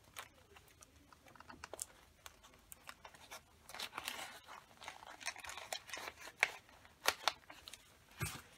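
Paper rustling and crinkling as hands work at a card stuck in a pocket of a handmade paper journal, then flip its pages. Irregular crackles and sharp paper clicks, busier from about halfway.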